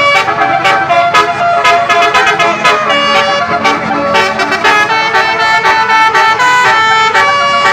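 Bus telolet horns, roof-mounted trumpet horns, playing loud melodic tunes: several notes sound at once and step up and down in pitch over a quick, even pulse.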